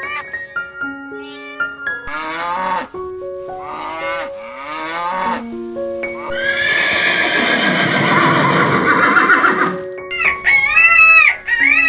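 Farm animal calls over background music: two short calls that fall in pitch, then one long rough call of about three and a half seconds. About ten seconds in, a cat starts meowing repeatedly.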